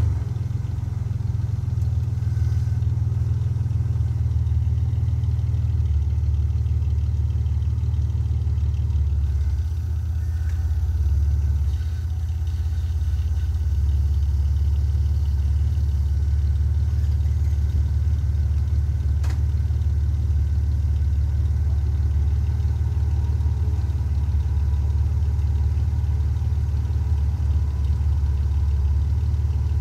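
Ford Explorer's engine idling steadily, a continuous low rumble.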